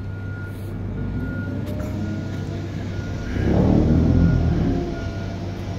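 Road traffic on a multi-lane street: a steady low rumble of passing cars, with one vehicle passing closer and louder about three and a half seconds in.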